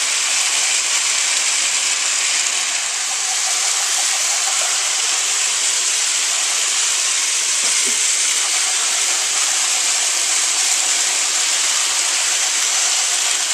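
Many battery-powered Trackmaster toy trains running at once on plastic track: a steady, high whirring hiss from their small electric motors and wheels.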